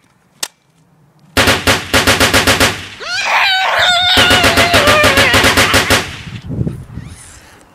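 Rapid automatic toy-gun fire, about seven shots a second, preceded by a single shot about half a second in. The fire starts a little over a second in and stops about six seconds in, with a wavering pitched cry running over its middle part.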